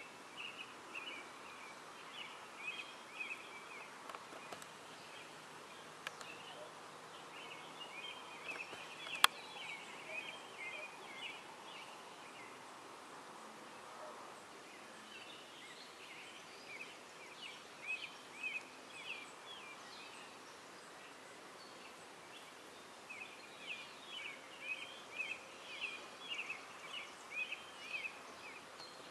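Evening outdoor ambience with a bird singing in bouts of quick chirping notes a few seconds long, with pauses between, over a faint steady hiss. A single sharp click about nine seconds in.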